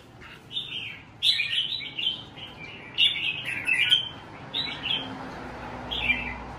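Red-whiskered bulbuls singing: a string of short, bright, warbling phrases, one about every second.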